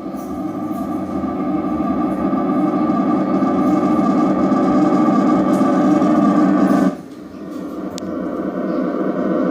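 Doorbell giving off a creepy, steady droning tone that swells gradually, drops away sharply about seven seconds in, then builds up again.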